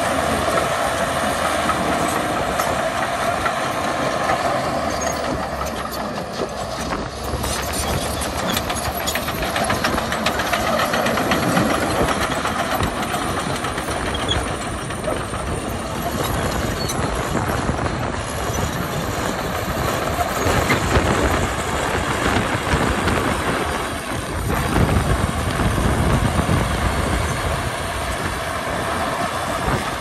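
Crawler bulldozer's diesel engine running under load as it pushes dirt with its blade, with the steady clatter of its steel tracks.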